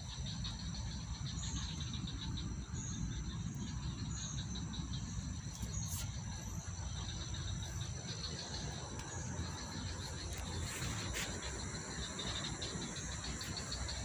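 Insects chirring steadily, a high, rapidly pulsing trill, over a low rumble. A few faint short chirps sound in the first few seconds.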